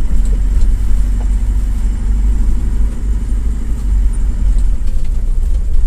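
Car driving over a rough, broken concrete road, heard from inside the cabin: a steady low rumble of engine and tyres.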